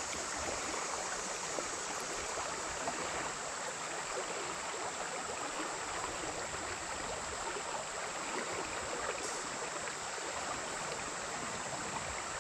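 Creek water flowing steadily, a constant even rush.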